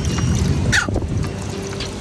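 Water pouring from a plastic watering can into a toddler's water-wheel sand toy, over background music. A short high-pitched sound comes just under a second in.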